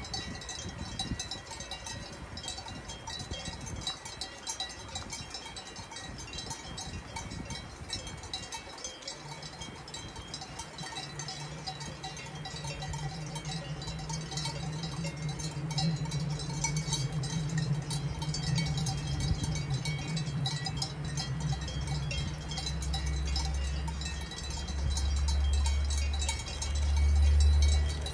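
Cowbells ringing and clanking. About ten seconds in, the low drone of an approaching diesel train joins them and grows steadily louder toward the end.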